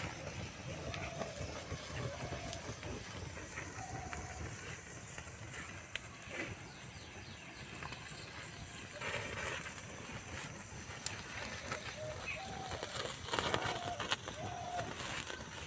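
Outdoor ambience around a wood cooking fire: a steady high hiss, scattered faint short animal calls, and a few sharp cracks from the burning wood.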